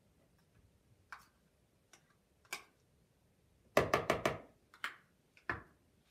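Scattered clicks and knocks of hands and a utensil working butter in a mixing bowl, with a quick run of about five louder knocks about four seconds in.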